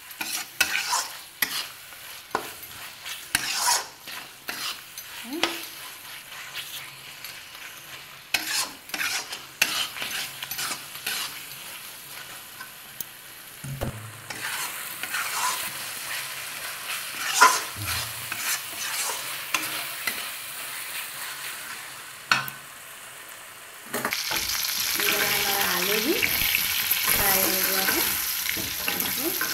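Metal spatula scraping and stirring a thick tomato-onion masala in an iron kadhai, in quick irregular scrapes and knocks over a light sizzle. Near the end it changes abruptly to a louder, steady sizzle of potatoes frying in oil as the spatula turns them.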